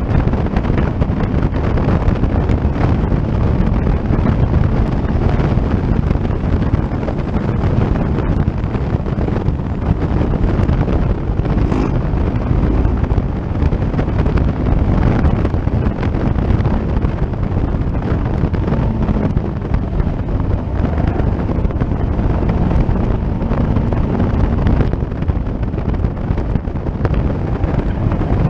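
Caterham Seven race car driven hard on track, heard from its open cockpit: the engine running under load, with heavy wind buffeting on the microphone throughout.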